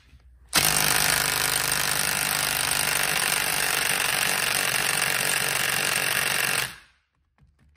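DeWalt 20V MAX XR brushless 3/8-inch compact impact wrench (DCF890) hammering steadily on a nut torqued to 180 foot-pounds for about six seconds, then cutting off suddenly. It fails to break the nut loose.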